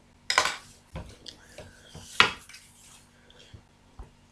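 A few sharp knocks and rustles of a hand and pencil moving over a paper drawing on a desk, the loudest knock about two seconds in.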